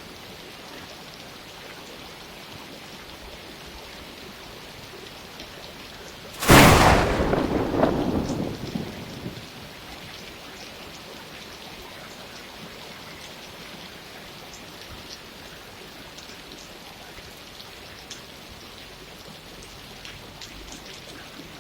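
Steady rain falling, with one loud, sudden thunderclap about six seconds in that rumbles away over about three seconds.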